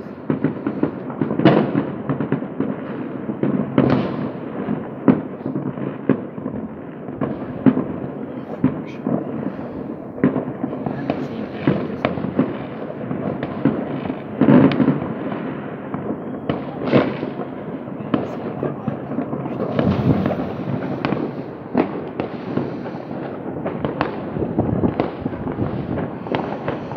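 Fireworks going off: a dense, irregular run of bangs and crackling, with louder booms every few seconds.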